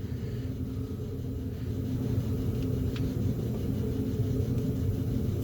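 Steady low background rumble, with one faint click about three seconds in.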